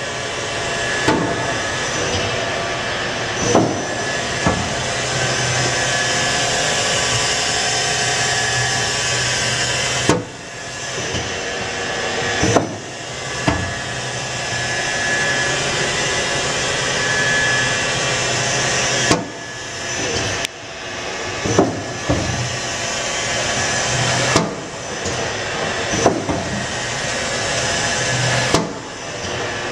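Okuma Howa HL-20 CNC lathe running: a steady hiss with a low hum and faint whine, broken by sharp clunks now and then. The hiss cuts out briefly several times and comes back.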